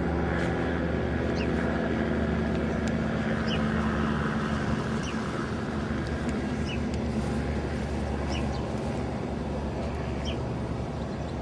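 Steady outdoor rumble with a low engine-like hum, strongest in the first couple of seconds, and short high chirps every second or so.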